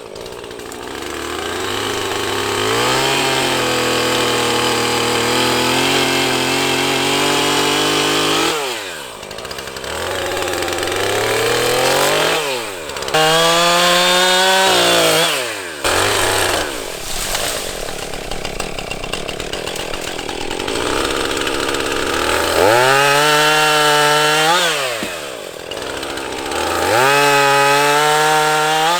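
Chainsaw cutting into a large tree trunk. The engine holds a steady pitch under load for several seconds, then drops and revs back up about four times as the throttle is let off and opened again.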